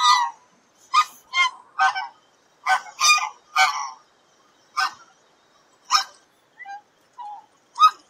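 Swan goose (Anser cygnoides) honking: about a dozen short honks at uneven intervals, with two fainter calls near the end.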